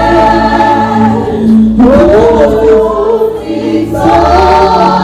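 Gospel choir singing with a bass accompaniment.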